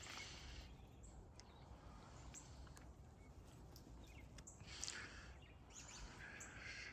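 Near-silent outdoor quiet with a faint steady hiss, a few soft clicks and brief rustles, and a couple of faint chirps.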